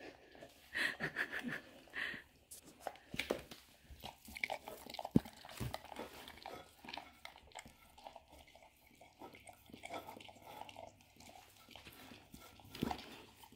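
A dog licking whipped cream out of a ceramic bowl: irregular wet licks and smacks, in quick runs. There is one sharp knock about five seconds in.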